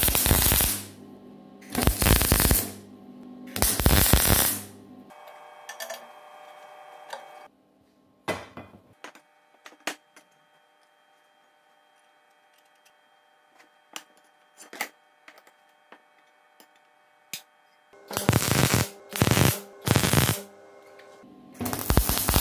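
Arc welder laying short tack welds on sheet steel: three crackling bursts under a second each at the start, then several more near the end. Background music and a few light clicks fill the quieter stretch between them.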